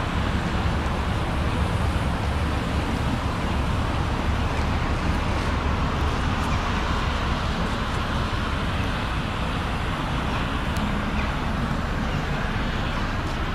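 Ford Explorer's 3.5-litre V6 idling steadily.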